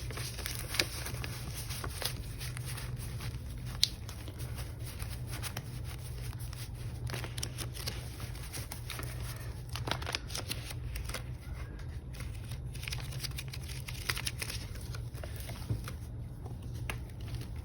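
Paper banknotes being handled and shuffled, with scattered light rustles and soft clicks over a steady low hum.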